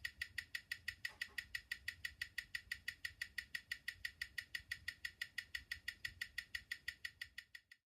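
Rolex calibre 1225 manual-wind watch movement ticking, picked up close up as on a timing machine: crisp, even ticks at about five a second, stopping abruptly near the end. A freshly serviced movement running at a healthy amplitude of about 290 to 300 degrees when fully wound.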